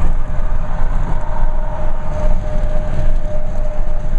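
Highway traffic rumble with wind on the microphone. From about half a second in, a long, steady vehicle horn sounds for roughly three and a half seconds.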